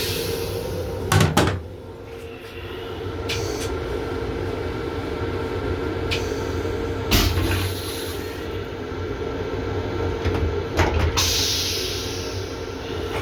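Steady hum and low rumble inside an M7 commuter railcar's restroom, broken by a few sharp clunks and knocks, the loudest about a second in and the others about 7 and 11 seconds in.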